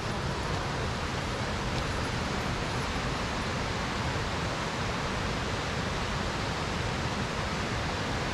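A steady, even rushing noise with no separate events.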